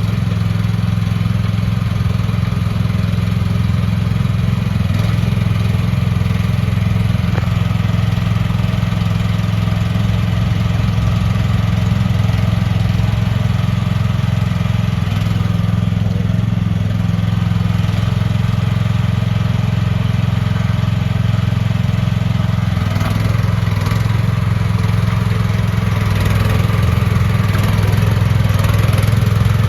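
Gas engine of a mini excavator running steadily, getting a little louder near the end.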